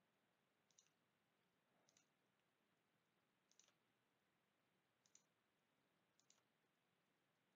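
Near silence, with five faint computer mouse clicks spread a second or so apart.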